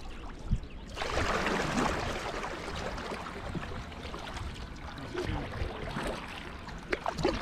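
Kayak paddle strokes through calm lake water: the double blades dipping, splashing and dripping, with water rushing along the hull. The water noise comes in sharply about a second in and carries on steadily.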